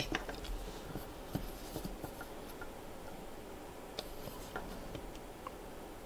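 Small screwdriver tip prying at a press-fit SFF-8643 SAS connector on a circuit board: faint scraping and scattered small clicks, busiest in the first couple of seconds, then a few single clicks.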